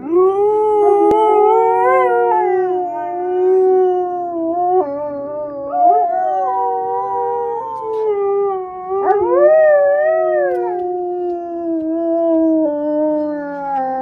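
Two Alaskan Malamutes howling together: long, overlapping howls at two different pitches that slide up and down, one howl swooping up and back down about nine seconds in.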